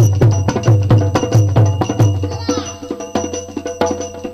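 Instrumental folk-ballad accompaniment: a deep hand drum beats a steady rhythm of about four strokes a second, then drops out about two seconds in. Held instrument tones carry on quietly after it.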